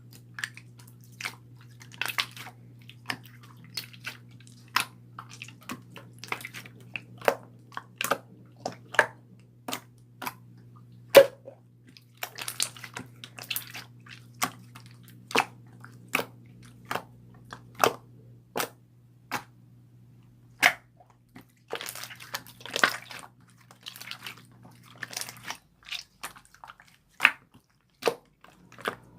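Small objects being handled close to the microphone: irregular sharp clicks and taps about once or twice a second, with a few short rustles, over a low steady hum that stops near the end.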